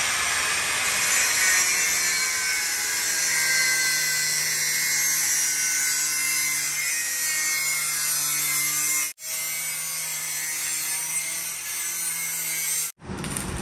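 Angle grinder with a cut-off disc cutting metal: a steady, high-pitched grinding over the motor's hum. It drops out briefly about two-thirds of the way through and stops near the end.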